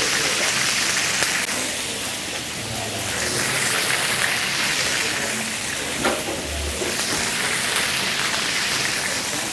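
Chicken pieces sizzling steadily as they brown in hot vegetable oil in a large paella pan.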